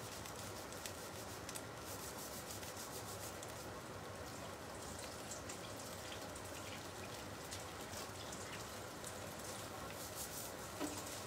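Soft sizzle and crackle of pancakes cooking in a frying pan, with a faint trickle of water at the kitchen sink where a spatula is being rinsed.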